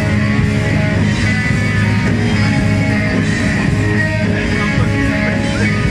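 Rock music with electric guitar and drums, playing steadily.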